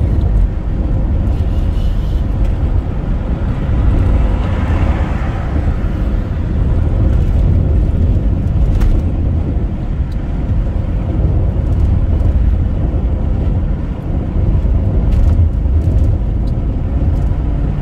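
A car driving at highway speed, heard from inside: a steady low rumble of engine and tyres on the road, with a brief louder rush about four to five seconds in.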